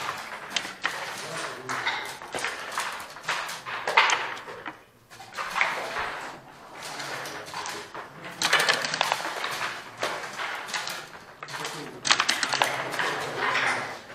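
Repeated sharp clicks and clacks of long-backgammon checkers and dice being moved and dropped on the board, with voices talking in the background.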